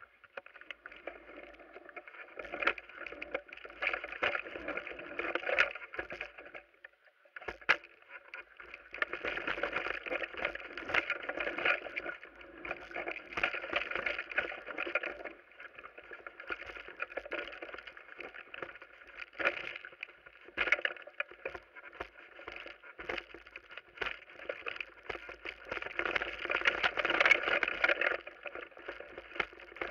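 Mountain bike descending a rough dirt forest trail: steady rattle of chain and frame with tyre noise on dirt and stones, broken by sharp knocks over bumps. It gets louder near the end.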